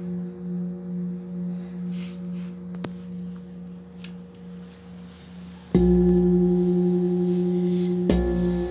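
Large brass singing bowl ringing with a low, slowly pulsing hum while a person stands barefoot inside it for sound therapy. It is struck about six seconds in and again near the end, and each strike brings the ringing back loud.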